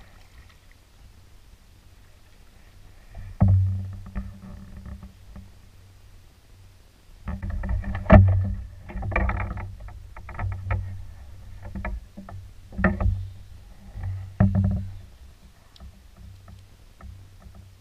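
Irregular knocks and thumps on a canoe's hull as the paddle is set down and a spinning rod is handled. One loud knock comes about three seconds in, then a cluster of knocks and clunks from about seven to fifteen seconds in.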